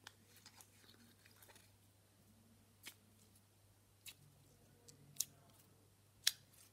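Orange jelly slime squeezed in the hand, giving faint wet squishes and a few sharp sticky clicks, about one a second in the second half.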